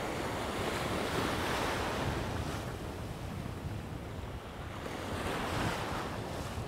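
Shallow sea surf washing and breaking around the wader, swelling as each wave comes through, with wind buffeting the microphone.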